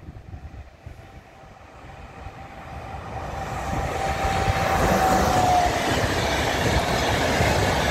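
Siemens EU44 Husarz electric locomotive hauling an express passenger train through at speed. The sound swells over the first five seconds, then holds as the steady rush of the passing coaches. A thin steady whine dips slightly and stops about five and a half seconds in, as the locomotive goes by.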